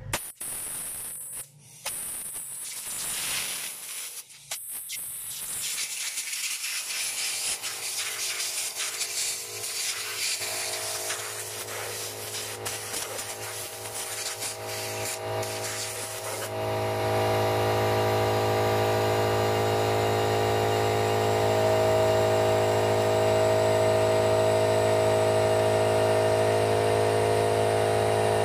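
Hissing spray with short breaks while a hydraulic floor jack is being cleaned. About two-thirds of the way through, a motor starts up suddenly and runs with a steady hum, louder than the hiss.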